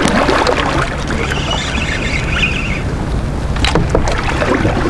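Water sloshing and lapping against a fishing kayak as its paddle is worked one-handed, under a steady low rumble of wind on the microphone. Scattered light knocks come through, with a sharper one a little before the end.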